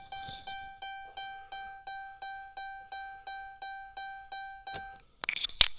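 A near-new Chrysler's interior warning chime sounding rapidly and evenly, about three to four chimes a second, then stopping about five seconds in. A loud burst of noise follows just before the end.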